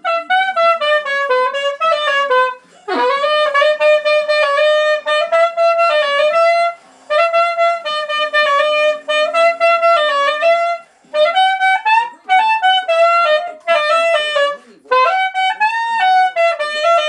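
Soprano saxophone played solo: a melody of quick notes in five phrases, with short gaps between them.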